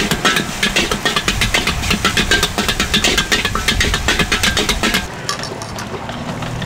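Metal ladle and spatula clanging and scraping rapidly against a steel wok during stir-frying, over the steady rumble of the wok burner. About five seconds in the clatter gives way to a quieter stir with only scattered scrapes over the burner's hum.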